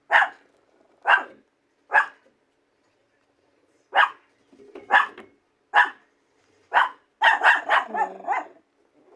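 A dog barking in short, sharp barks: three about a second apart, a pause of about two seconds, then more barks about a second apart, ending in a quick run of several barks in a row near the end.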